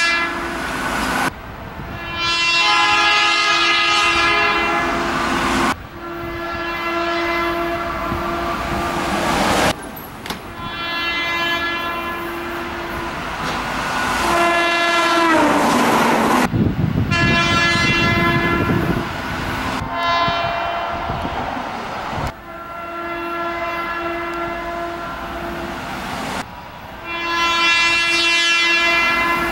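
Keihan 8000 series train horn sounding in a string of separate sustained blasts, each a few seconds long, one after another. Near the middle one blast slides down in pitch as a train passes, followed by train rumble.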